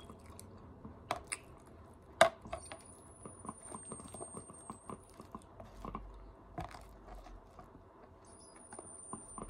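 Close-miked chewing of a tostada salad, with mouth sounds and a scatter of small clicks as a plastic fork works in a plastic container; one sharp click about two seconds in is the loudest.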